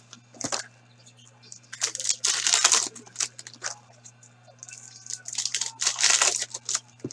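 Hockey card pack wrappers being torn open and crinkled, in several bursts of tearing and rustling.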